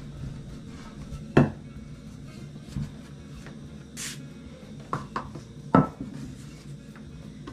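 Wooden rolling pin rolling flatbread dough on a table, with sharp knocks of the pin on the tabletop about a second and a half in and again near six seconds, when it is set down. A brief high swish about four seconds in as the rolled dough is lifted off the table, over a low steady hum.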